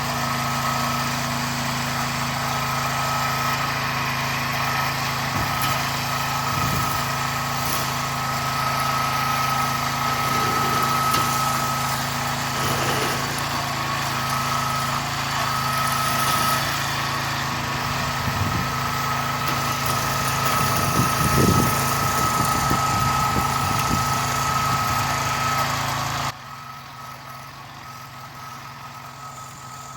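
Tractor engine running steadily under work, with a constant high whine over the low hum. Near the end the sound drops suddenly to a much quieter level and carries on.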